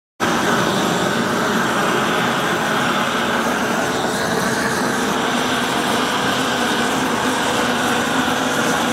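Gas torch flame burning with a steady rushing noise, used to burn off old antifouling paint from a boat's hull.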